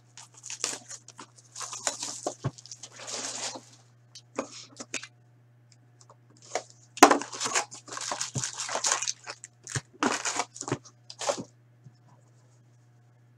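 Hockey card pack wrappers being torn open and crinkled, with the cards handled by hand, in irregular rustles and sharp snaps with short pauses; the loudest snap comes about seven seconds in. A steady low hum runs underneath.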